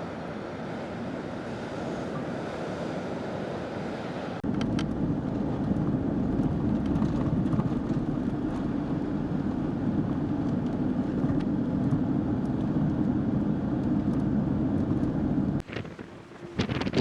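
Blizzard wind blowing across the microphone, a steady rush that jumps about four seconds in to a louder, deeper rumble and cuts off suddenly near the end.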